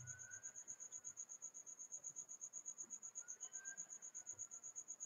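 A cricket chirping faintly in a steady, rapid high-pitched pulse of about eight beats a second, with a few faint tones that slowly rise and fall.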